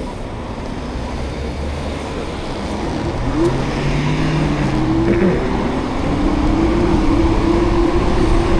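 Low, steady rumble of wind and tyres on a wet road, with a vehicle engine hum that shifts pitch about three to five seconds in, then climbs slowly and grows louder toward the end.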